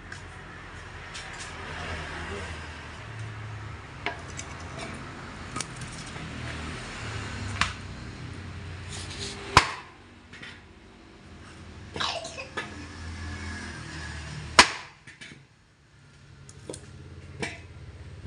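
A hammer knocking on a spoked motorcycle wheel rim held against a wooden block, beating a dent out of the rim. Scattered sharp knocks, two of them much louder, about halfway and about three quarters through, over a steady low hum.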